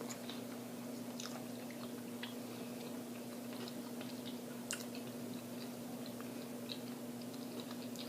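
A person chewing food close to the microphone, with scattered small mouth clicks and crunches. A steady low hum runs underneath.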